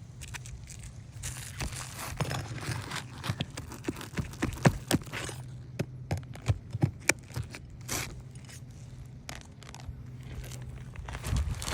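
Roofing tools scraping and clicking against asphalt shingles as they are pried up, with many short, irregular sharp clicks and scrapes.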